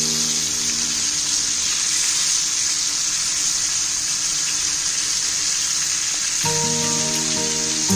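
Kilimeen (threadfin bream) pieces shallow-frying in hot oil with curry leaves, a steady sizzle. Background music stops about a second in and comes back near the end.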